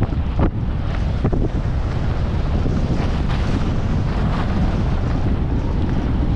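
Wind buffeting a GoPro Hero 12's microphone as the wearer skis downhill at speed, a steady low rumble of noise. Over it runs the hiss of skis on packed snow, with a few sharper scrapes of ski edges in the first second or so.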